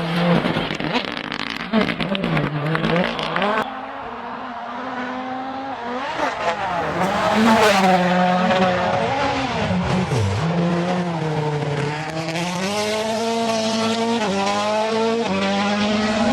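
Rally car engine revving hard, its pitch rising and falling repeatedly with throttle and gear changes, then climbing steadily near the end. The first few seconds carry a rapid clatter of clicks over the engine.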